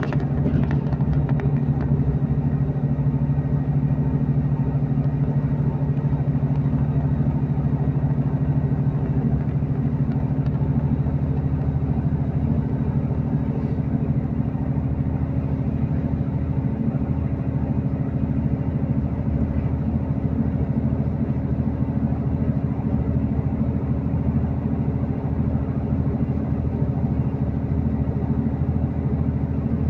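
Diesel passenger train running at speed, heard from inside the carriage: a steady engine drone with a constant low hum over continuous rumble.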